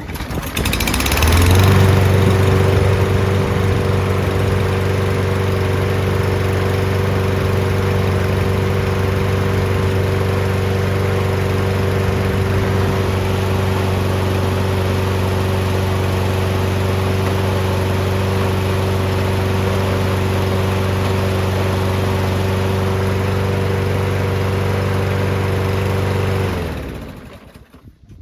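Briggs & Stratton engine of a Toro Recycler push mower starting about a second in and running steadily at one speed, then shut off near the end and spinning down. It runs smoothly, its plastic carburetor freshly cleaned out with carb cleaner, and the mower is judged good to go.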